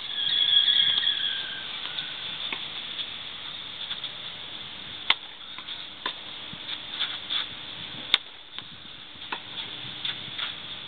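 Tennis ball being struck with a racket during a rally, sharp pops a second or more apart over a steady high hiss.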